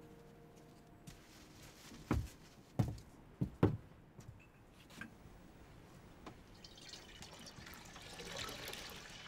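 Several dull knocks in the first half, then water poured from a jug, splashing in a steady stream through the last couple of seconds.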